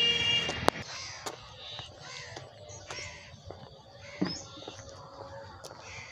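Crows cawing repeatedly. A steady high-pitched tone stops sharply just under a second in, with a sharp click there and another about four seconds in.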